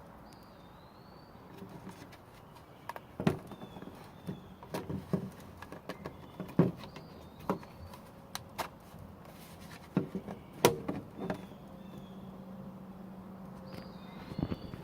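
Scattered clicks and knocks from handling and opening an electric mosquito trap to get at its collection cage, with birds chirping faintly in the background. A faint low steady hum comes in about ten seconds in.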